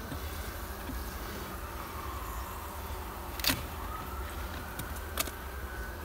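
Honey bee colony buzzing, with single bees flying close past in slow rising and falling whines. Two sharp clicks sound about three and a half and five seconds in.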